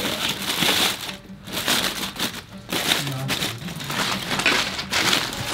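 Aluminium foil crinkling and rustling in irregular bursts as hands peel it open, under background music.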